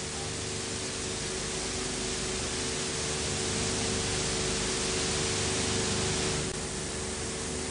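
Steady hiss of recording noise with a low, steady hum underneath; the hiss drops suddenly about six and a half seconds in.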